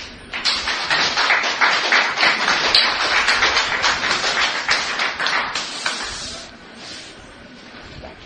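Audience applauding, starting abruptly and dying away after about six seconds.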